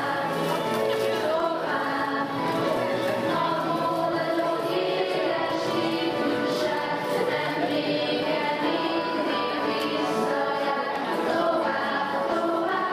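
A choir singing, many voices together holding sustained notes.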